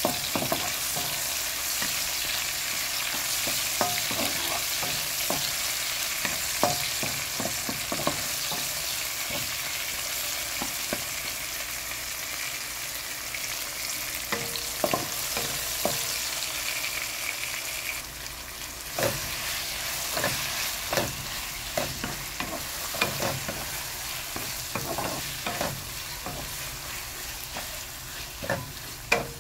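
Garlic, onion and tomato sizzling in hot oil in a nonstick wok, with frequent spatula scrapes and taps against the pan. The sizzle gets a little quieter a little past halfway.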